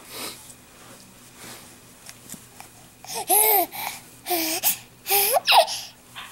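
Baby squealing happily, three loud high-pitched squeals starting about three seconds in, each rising and falling in pitch.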